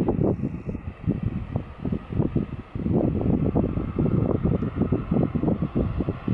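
Wind buffeting the microphone in uneven, rapidly surging gusts, with a faint steady hum behind it.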